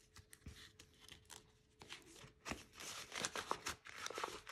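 Crinkling and rustling of a clear plastic binder envelope and paper banknotes being handled as cash is slid inside, growing busier and louder with sharp crackles in the second half.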